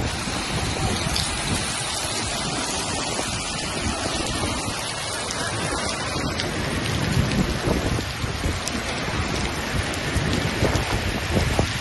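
Heavy downpour in a hailstorm: a steady, dense hiss of falling rain and hail, with wind rumbling on the microphone. The hiss shifts abruptly about six seconds in.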